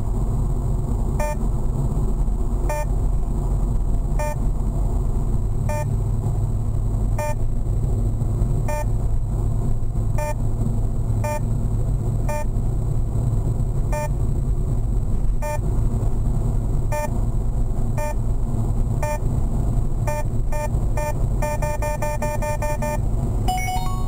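Genevo radar detector beeping a Ka-band radar alert, a short pitched beep about every one and a half seconds that quickens as the distance to a fixed Multanova speed camera closes, turning into a rapid run of beeps near the end, followed by a different tone as the camera is passed. Under it, the steady rumble of the car's road and engine noise inside the cabin.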